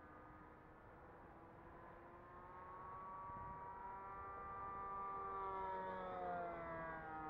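Nitro-powered O.S. .95 engine on a Value Hobby Tiger RC airplane flying past: the steady engine note grows louder, then drops in pitch about six seconds in as the plane passes.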